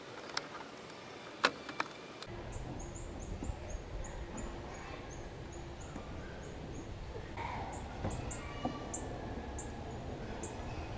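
A few sharp knocks as the fan shroud is worked into the Jeep's engine bay. Then outdoor ambience with birds chirping: short high-pitched notes, about three or four a second at first, then sparser, with an occasional light clunk from the engine bay.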